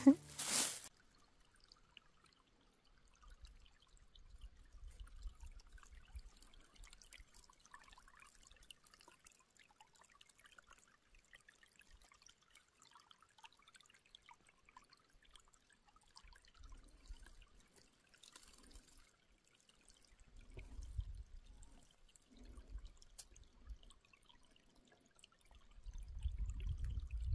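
Faint trickle of a shallow forest creek, with scattered small drips and splashes. A short loud noise comes in the first second, and low rumbles come and go near the end.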